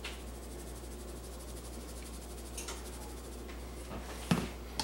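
Seasoned salt shaken from a shaker onto a raw venison roast: a faint, fast, dry rasp of granules over a low room hum, with a soft knock near the end.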